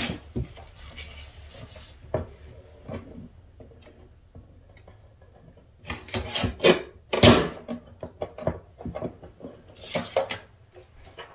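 A piece of card being cut to size by hand: intermittent rubbing and rasping strokes mixed with a few sharp knocks, loudest about six to seven and a half seconds in and again around ten seconds in.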